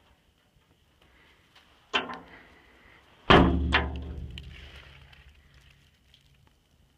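The metal door of an old Union Switch & Signal trackside signal case being swung shut: a clank about two seconds in, then a loud slam a second later that rings on and dies away over two or three seconds.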